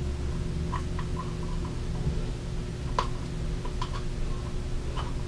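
Light clicks and taps of small metal parts and tools being handled while an airgun is taken apart, with one sharper click about three seconds in. A steady low hum runs underneath.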